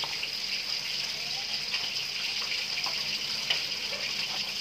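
Kitchen knife slicing fried tofu on a plastic cutting board, with a few light taps of the blade on the board, the sharpest about three and a half seconds in, over a steady hiss.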